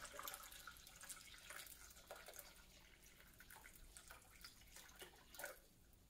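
Faint trickle and drips of water being poured into a crock pot, thinning out toward the end.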